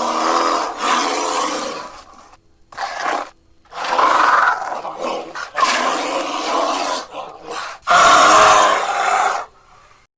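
Black bear growling: a series of about five harsh, rasping calls of one to two seconds each, with short pauses between them. The loudest call comes near the end.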